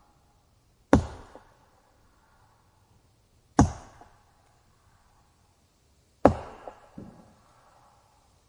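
Wood being chopped: three sharp strikes about two and a half seconds apart, each followed a moment later by a smaller knock.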